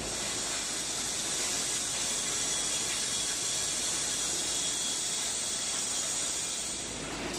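Steady high hiss from an automatic welded wire mesh welding machine, with a faint, steady high whistle running through it.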